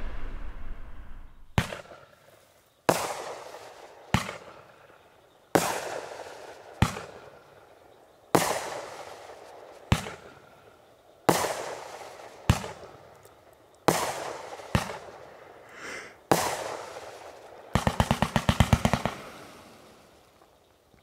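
Red Rhino 'Big Red' consumer fireworks cake firing: about a dozen loud bangs, one every second and a half or so, each echoing away. Near the end a rapid string of about a dozen pops fires in quick succession, then dies away.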